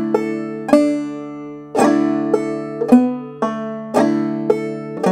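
Open-back banjo played clawhammer style in double C tuning, capoed up to the key of D: a short phrase in the steady bum-ditty rhythm of struck notes and brush strums, with the thumb catching the fifth string, about two strokes a second. The phrase includes pull-offs on the first and third strings, heard as notes that change pitch without a fresh pick.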